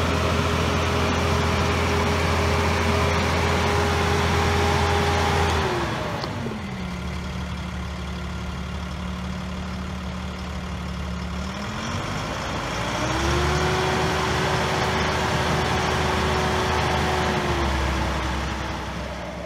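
Fendt Favorit 714 Vario tractor's six-cylinder diesel engine running at raised revs, dropping to idle about six seconds in, revving back up about twelve seconds in and holding there, with a slight drop near the end.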